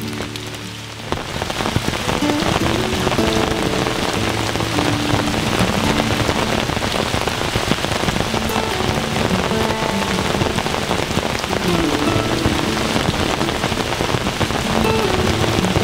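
Steady rain falling, a dense patter of drops that grows heavier about a second in.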